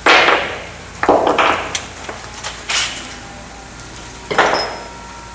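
Four short, sharp bursts of scraping noise as paint is cleaned out of bolt holes in a metal part, each dying away within half a second.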